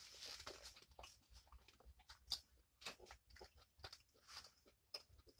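Faint, close-miked chewing: a scatter of small wet mouth clicks and smacks from someone working through a mouthful of food.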